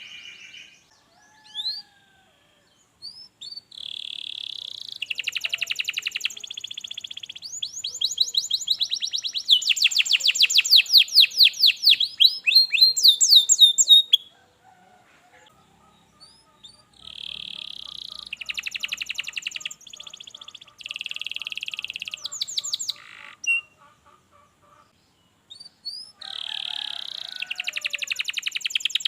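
Canary singing: phrases of fast trills and rolling runs of rapidly repeated notes, each lasting a few seconds, broken by two pauses of a couple of seconds.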